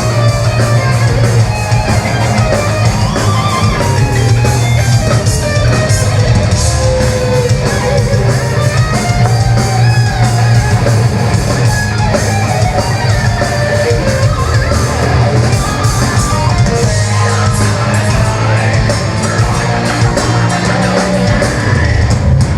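Melodic death metal band playing live: distorted electric guitars over heavy bass and a drum kit, steady and loud, with a wavering lead guitar line on top.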